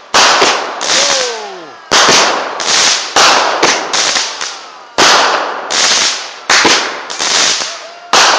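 A 'Baby Boomer' multi-shot consumer fireworks cake firing shot after shot. Each shot is a sharp loud bang with a crackling tail, coming every second or so, and a falling whistle sounds about a second in.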